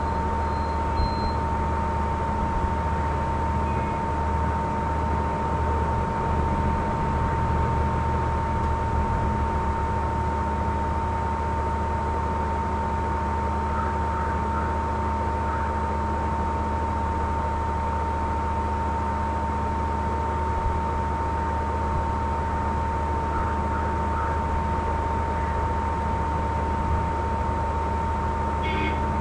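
Steady background hiss and low hum with a constant high whine, the electrical and recording noise under a wordless screen recording.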